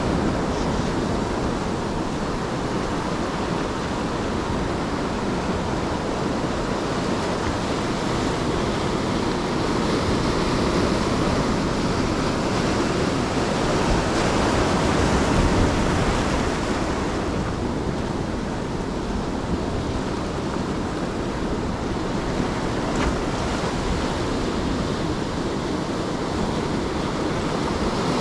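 Ocean surf washing steadily onto the shore, with wind rumbling on the microphone; the wash swells a little about halfway through.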